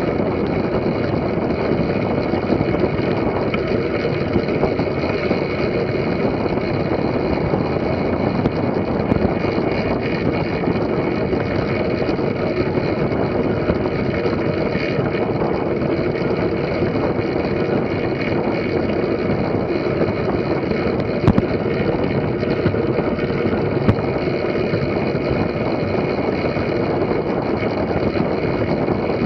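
Track bike tyres rolling on the wooden boards of an indoor velodrome, heard from a bike-mounted camera as a steady rumble and rush. Two brief sharp clicks come a few seconds apart, about two-thirds of the way through.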